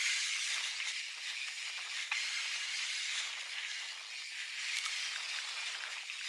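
Mountain bike riding fast down a dry dirt and gravel trail: the steady hiss of knobby tyres rolling over the dirt, with rattles from the bike and a couple of sharp clicks, about two and five seconds in.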